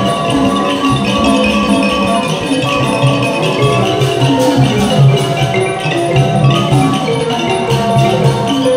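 Thai piphat mon ensemble playing continuously, with the ringing metal gong circles of the khong mon and other mallet percussion carrying dense runs of notes.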